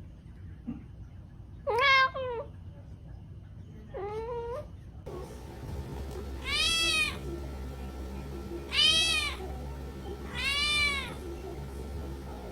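British shorthair kittens meowing: five separate high meows spaced about two seconds apart. The last three are longer, rising then falling in pitch, over a low steady hum.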